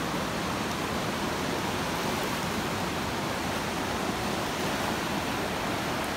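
A small creek running high and fast after heavy rain, its flowing water making a steady rush.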